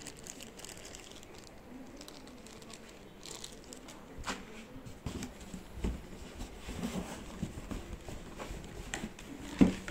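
Clear plastic packaging bags crinkling and rustling as they are handled. The rustle is faint at first; from about four seconds in come scattered light knocks, and one louder knock comes near the end.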